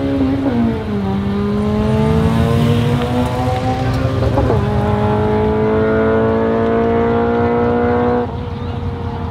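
Engine of a 1960s Ford Mustang fastback race car pulling away at low speed. Its note rises steadily and drops back at two gear changes, about one second and four and a half seconds in. The sound falls off in loudness near the end.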